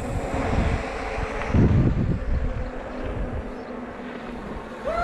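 Wind rushing over the microphone with the low rumble of mountain-bike tyres on a rough downhill dirt trail, loudest about one and a half seconds in.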